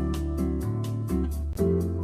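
Instrumental background music: evenly paced plucked notes, about four a second, over held bass notes.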